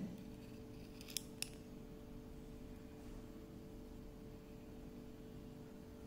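Two small sharp metallic clicks about a second in, a moment apart, from a small 3Cr13 stainless steel folding pocket knife's blade swinging open and locking. A faint steady hum underneath.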